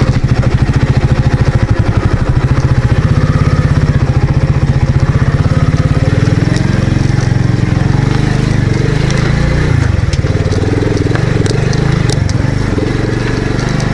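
Motorcycle engine running as the bike is ridden along a dirt track, heard from the rider's seat. Its fast even pulsing beat smooths out about halfway through, and the pitch rises and falls with the throttle after that.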